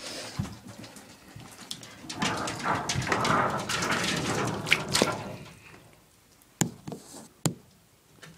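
Bathwater splashing and sloshing in a tub as a wet guinea pig is handled, mixed with small clicks, followed by two sharp knocks near the end.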